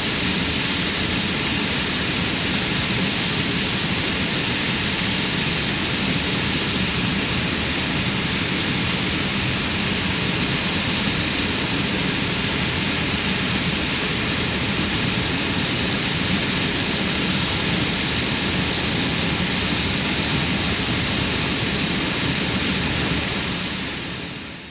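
Muddy floodwater of a river swollen by heavy rain pouring over a low weir, a loud, steady rush of churning water. It fades out near the end.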